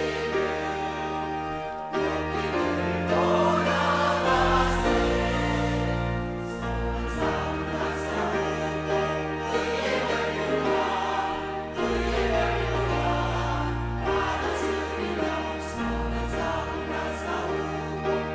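Church choir of mostly older women singing a Korean hymn together, over an accompaniment that holds long, steady bass notes.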